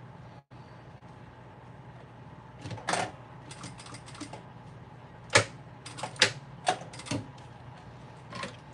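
Irregular sharp clicks and knocks from handling work at a sewing machine, beginning about three seconds in, over a low steady hum.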